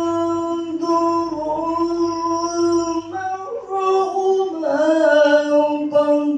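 A man chanting Qur'an recitation (tilawah) into a microphone in a melodic, sung style. He holds one long high note, then about three seconds in climbs higher into ornamented, wavering turns.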